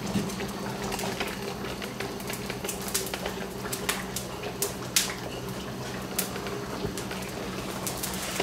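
Salt cod pieces cooking in oil in a frying pan for bacalao al pil pil, the oil crackling in scattered, irregular sharp pops. A steady low hum runs underneath.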